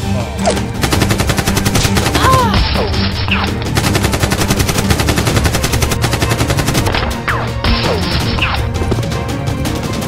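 Rapid, continuous machine-gun fire sound effects over background music.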